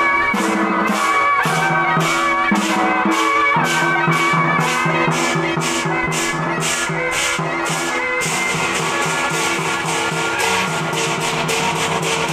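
Music with a steady beat: a pitched melody over regular drum hits, about two a second. The texture turns denser and brighter about eight seconds in.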